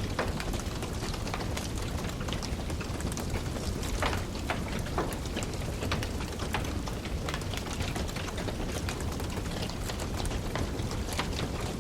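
Wood fire burning in a fireplace: a steady low rumble of flames with irregular sharp crackles and pops, one louder pop about four seconds in.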